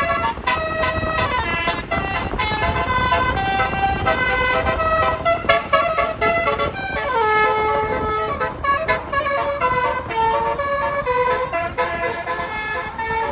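A bus's Basuri multi-tone telolet air horn playing a melody, one pitched note after another in quick steps, with a falling run of notes about halfway through. The horn sounds over a steady low engine and road rumble.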